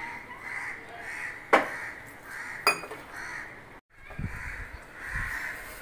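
Hand mixing and kneading wheat flour and water into dough in a steel bowl. Two sharp clinks against the bowl come about one and a half and two and a half seconds in, and dull thuds of the dough being pressed come near the end. Repeated animal calls sound in the background.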